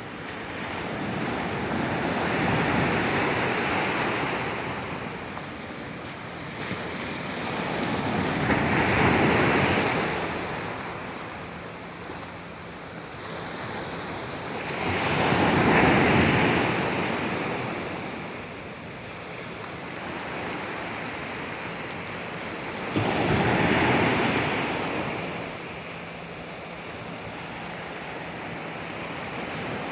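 Sea waves washing in, a steady rush that swells and fades four times, about every seven seconds, the last surge starting suddenly.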